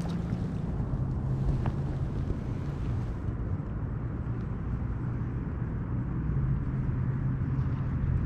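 Gusty wind buffeting the microphone, over a steady low hum.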